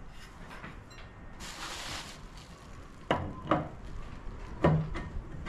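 Metal parts handled and clinking as a clutch pulley is slid onto a small engine's output shaft. There is a soft scraping rustle about one and a half seconds in, then a few short knocks in the second half as the clutch seats on the shaft.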